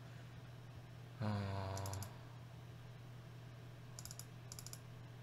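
Quiet clicking at a computer, the sound of a mouse and keyboard being used, over a steady low electrical hum. About a second in, a short hummed "mm" from a man's voice holds one pitch for under a second.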